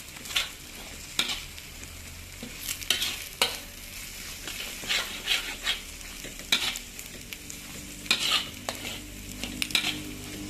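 Goose egg scrambling in hot oil with sautéed onion, garlic and chili, a plastic spatula scraping and pushing it across the black pan in a dozen or so irregular strokes over a light sizzle.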